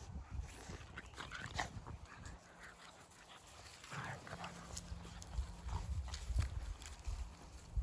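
Boxer puppies moving about, with scuffling and soft thumps and a few short high whimpers, the clearest about four seconds in.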